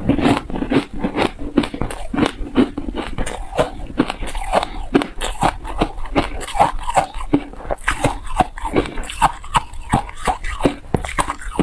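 Close-miked chewing of a mouthful of frozen ice: a rapid stream of crisp crunches and crackles, several a second.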